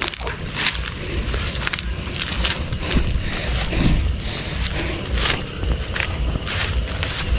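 Night insects, cricket-like, giving short high trilled chirps about once a second, over rustling and crunching footsteps through grass and brush.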